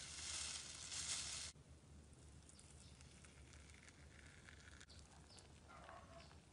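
Star-shaped glitter sequins pouring onto clear slime in a plastic jar, an even hissing patter for about the first second and a half. Then fingers pressing into the slime, with faint squishy sounds near the end.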